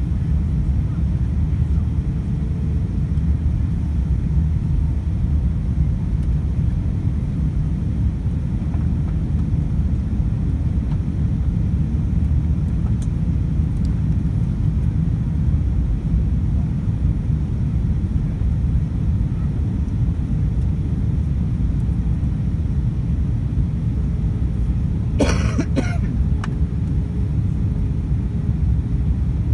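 Steady low rumble of an Airbus A320's IAE V2500 engines and airflow inside the cabin during descent, with the spoilers raised as speed brakes. About 25 seconds in, a short cough.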